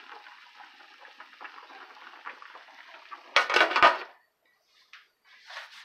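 Pork simmering in a stainless steel pan with a faint steady bubbling hiss, then about three seconds in a glass pot lid set down onto the pan in a short run of loud metal clanks.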